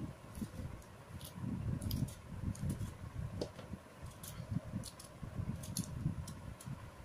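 A knife peeling tinda (apple gourd) over a steel tray: scattered faint clicks and scrapes over a low, uneven rumble.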